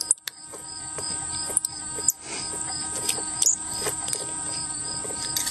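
Insects trilling steadily in a continuous high chorus, with a few small metallic clicks as a hand unscrews the valve retainer plate from a Dynajet pulsejet's valve head.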